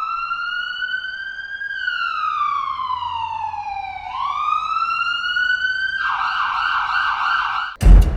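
Siren wailing, its pitch rising, falling slowly and rising again, then switching to a fast warble about six seconds in. A loud bang cuts it off near the end.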